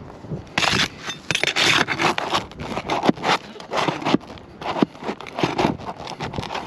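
A tool scraping and knocking on asphalt roof shingles as roofing nails are pried out: a run of short scrapes with sharp clicks and taps between them.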